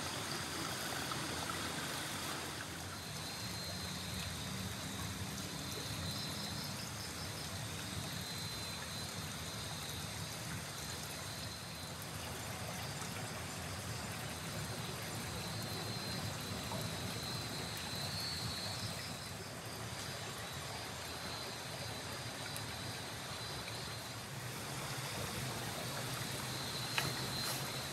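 A shallow rocky river flowing and trickling steadily over stones, with a high, pulsing chirr that comes and goes on top.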